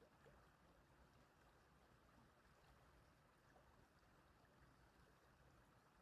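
Faint small stream running, a steady low water hiss with a few tiny trickling ticks.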